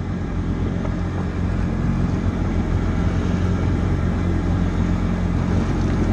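Jet ski engine running steadily at cruising speed, a continuous low drone that gets slightly louder about two seconds in.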